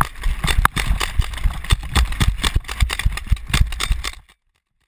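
Rapid, irregular gunfire from several guns at once, a dense run of sharp pops that cuts off suddenly about four seconds in.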